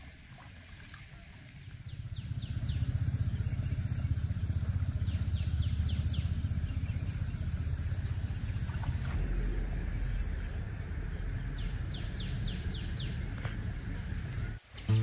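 Birds chirping in short quick trills and whistles, with a steady high insect drone, over a low rumbling noise that comes up about two seconds in.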